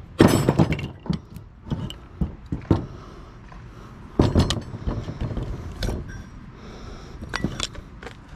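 Sharp metal knocks, clanks and clinks from an electric motor being taken apart by hand, an irregular run of impacts with the loudest just after the start and about four seconds in.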